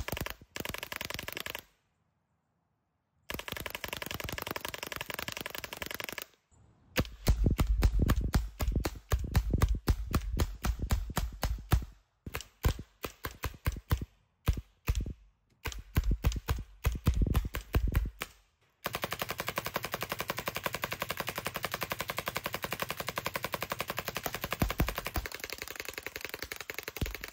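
Paintball guns on a remote-controlled dual turret firing in rapid full-auto strings, a fast run of sharp pops. The firing comes in several bursts with short breaks between them.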